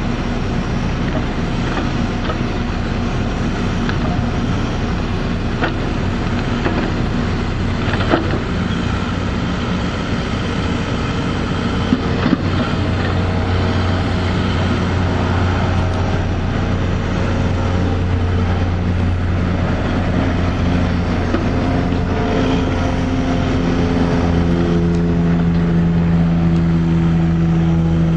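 Caterpillar backhoe loader's diesel engine running steadily under load while it compacts trench backfill, with a couple of sharp knocks about a third and halfway through. The engine speeds up near the end.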